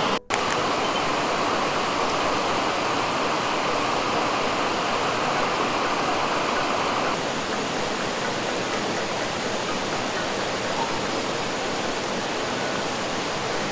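Fast-flowing river water rushing steadily. It cuts out briefly just after the start, and its tone shifts slightly about seven seconds in.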